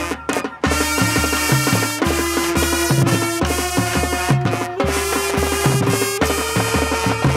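High school marching band playing: the drumline and bass drums beat alone at first, then about a second in the brass and woodwinds enter with held chords that step up in pitch every second or so over the steady drum pulse.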